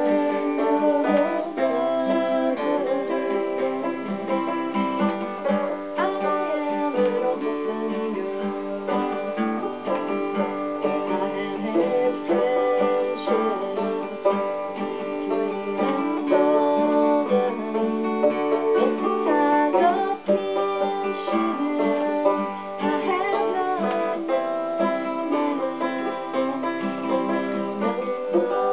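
Acoustic guitar and banjo playing a tune together.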